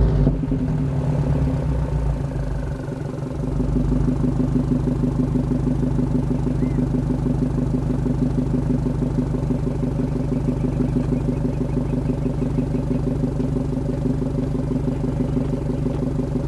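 Subaru WRX STI's turbocharged flat-four idling steadily through an AWE Touring exhaust, with a fast, even pulse.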